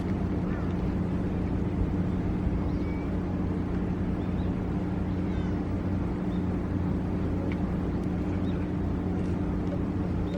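Ballpark ambience from the stands: a steady low hum with faint, scattered distant voices and calls.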